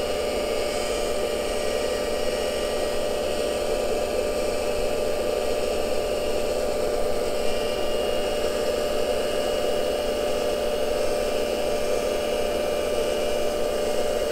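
Cincinnati tool and cutter grinder running with its wheel spinning free, not cutting: a steady whine over an even hiss, with one light click about halfway.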